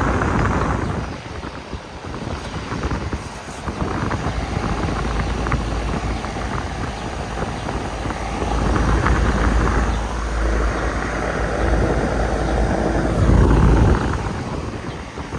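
Amana central air-conditioner condensing unit running, its outdoor fan and Copeland scroll compressor going steadily, with a low rumble that swells and fades several times.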